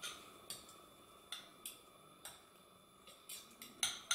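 Metal utensil tapping and scraping against a ceramic bowl while beaten eggs are stirred: faint, irregular clinks, about eight in four seconds.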